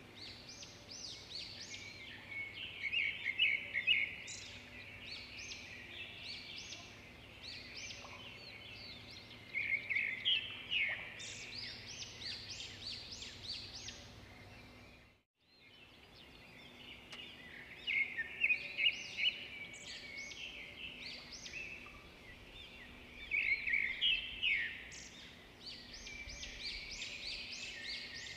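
Several small birds chirping and twittering in quick, busy runs over a faint steady background hum; the sound drops out briefly about halfway.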